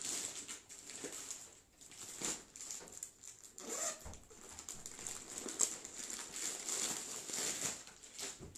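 Plastic packaging and cloth rustling and crinkling as hands sort through packed suit fabrics, in irregular rustles.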